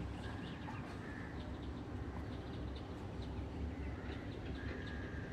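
Outdoor ambience: birds chirping, short high calls scattered throughout, with two longer held notes about a second in and near the end, over a steady low rumble.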